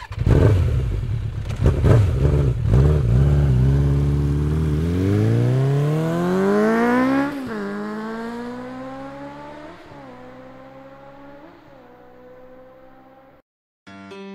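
A vehicle engine revved in a few short blips, then accelerating hard with a rising pitch. About seven seconds in it shifts up and keeps pulling away as it fades, and the sound cuts off suddenly near the end.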